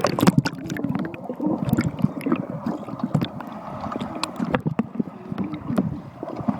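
Water rushing and sloshing close to a handheld camera, broken by many irregular knocks and bumps against it.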